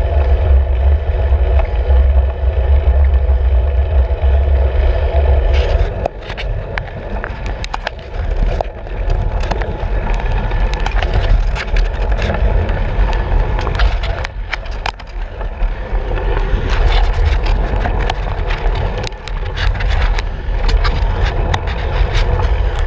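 Wind buffeting and road rumble picked up by a camera mounted on a road bike's handlebars while climbing, a heavy low rumble that eases after about six seconds. From then on, frequent sharp clicks and rattles break through.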